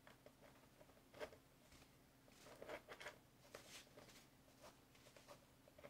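Near silence with a few faint, short clicks and rustles of small parts being handled: the aluminium nose-steering control arm being set in place on the nose gear of a foam model jet.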